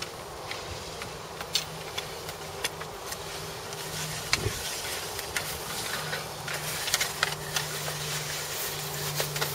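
A low mechanical hum that comes and goes, under scattered light clicks and ticks.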